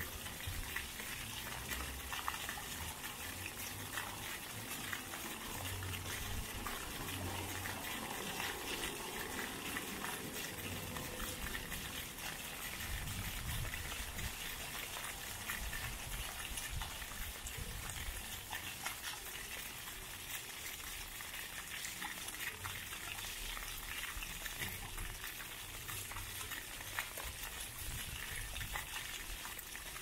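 Ground-level plaza fountain jets spouting and splashing back onto wet paving stones: a steady hiss of falling water with a fine patter of drops.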